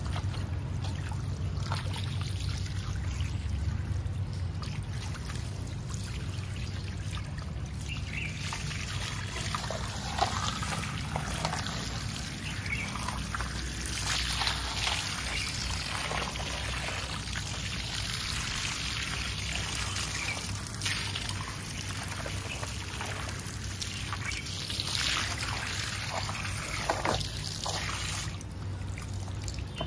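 Water from a hose pipe spraying and splashing onto plastic toy vehicles and paving stones, a steady rushing spray that grows louder for a few seconds around the middle and again near the end, over a low steady hum.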